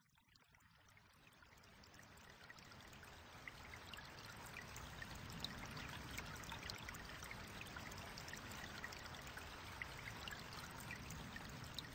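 Faint running water, a trickling stream with scattered small drips, fading in slowly from silence over the first few seconds and then holding steady.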